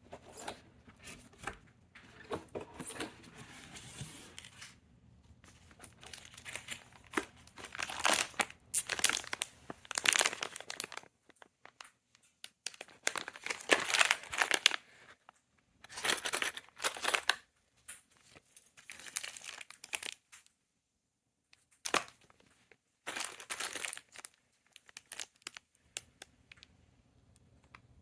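Packaging being handled and unpacked: irregular bursts of crinkling and tearing, with brief pauses between them.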